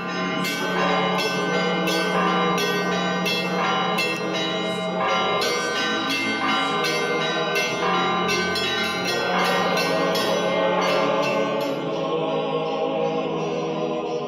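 Church bells ringing a rapid peal, about two to three strikes a second, over a steady low drone and choral music. The bell strikes stop about eleven seconds in and the music fades.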